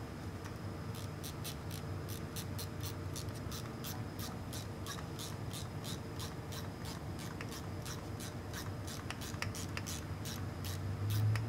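Hand ratchet wrench worked back and forth to run a nut off a stud, a steady string of short clicking bursts about four a second.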